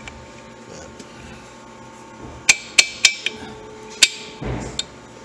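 Snap ring pliers clinking against a large internal steel snap ring as it is squeezed and worked out of its groove in the step pulley bearing housing of a Bridgeport J-head mill. There are four sharp, ringing metal clicks in the middle, over a steady hum of shop machines.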